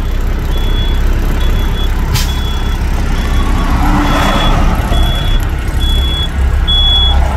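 Heavy truck's engine idling, a steady low rumble heard inside the cab, with a high electronic beep repeating a little more than once a second. A single click comes about two seconds in.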